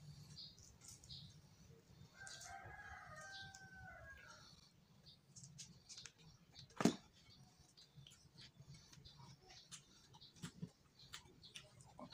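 A rooster crows once in the background, about two seconds in, lasting around two and a half seconds. Throughout there are small clicks and snaps of petai (stink bean) pods being split open by hand, with one sharp click about seven seconds in the loudest sound.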